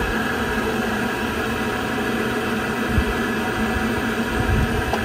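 Mastertemp pool heater's combustion blower fan running steadily during start-up, a constant whirring hum with several steady tones. A couple of soft low thumps come in the second half.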